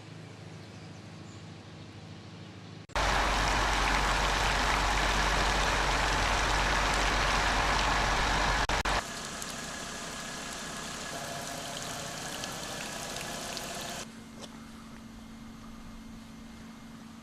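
Vehicle noise in abrupt spliced segments. A low engine hum comes first. About three seconds in, loud rushing noise with heavy rumble cuts in, like wind and road noise on a moving vehicle. It drops sharply to a softer rush about nine seconds in, and near the end to quieter noise with a steady hum.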